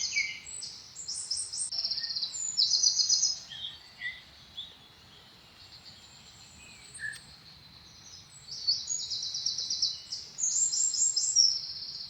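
Birds chirping and trilling in quick, high phrases that come in clusters, with a quieter lull in the middle.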